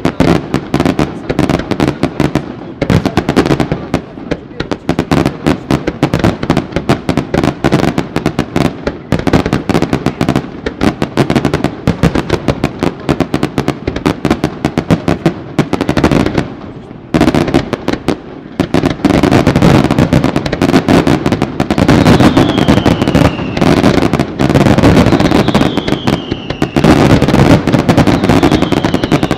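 Aerial fireworks display: a dense, rapid barrage of shells and comets launching and bursting, with crackling between the bangs. There is a brief lull a little past halfway, then three falling whistles rise over the barrage near the end.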